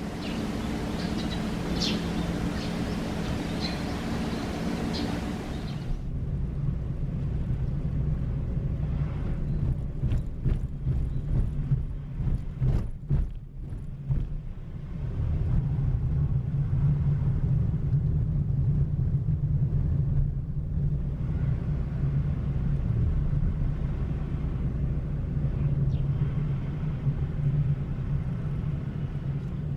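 Car being driven, heard from inside: a steady low road and engine rumble, with a run of sharp knocks and bumps midway. Before that, a few seconds of a lower hum with short high bird chirps, ending in an abrupt cut.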